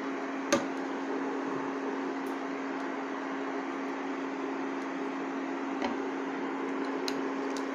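Steady hum and hiss of an induction cooktop running under a pan of simmering stew, with a sharp knock about half a second in and a fainter one near six seconds as the wooden spatula strikes the pan.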